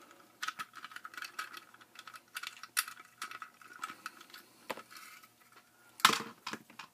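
Small plastic clicks and rattles from handling and working loose a solar floodlight's plastic motion-sensor housing, with a louder clack about six seconds in.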